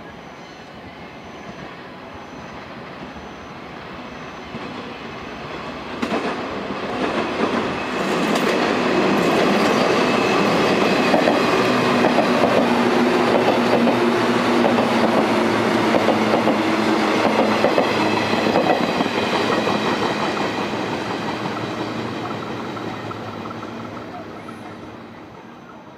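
A six-car JR West 117 series electric multiple unit running past. The sound builds as it approaches and grows sharply louder about six to eight seconds in, as the wheels clatter rhythmically over the rail joints with a steady whine. It fades away as the last cars go by.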